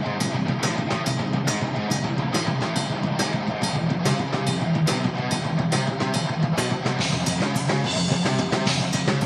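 Rock music: guitar over a steady drum beat of about three hits a second.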